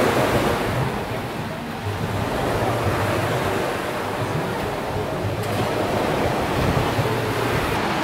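Surf of a choppy sea breaking on the shore, a steady rushing noise, with wind buffeting the microphone.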